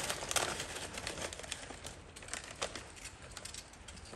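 Plastic bag of chips crinkling and rustling as a hand rummages inside it, a dense run of short crackles that is busiest in the first second or so and thins out toward the end.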